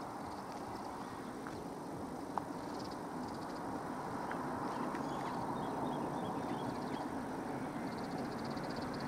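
Steady rumble of an approaching train on the electrified main line, growing slowly louder from about three seconds in, with a few faint bird chirps over it.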